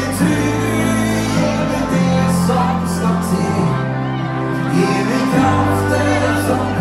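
Live country-rock band playing with a lead singer, guitars and drums, in a large hall; the bass notes change every second or two.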